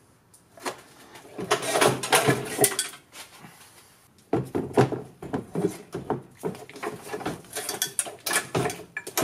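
Clinking and clattering of hand tools and metal parts being handled, in two runs of quick knocks with a short lull between them.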